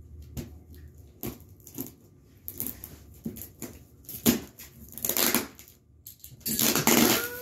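A cardboard shipping box being opened by hand: scattered clicks and scrapes, with longer stretches of tearing and rustling cardboard, tape and packing about two and a half, five and seven seconds in.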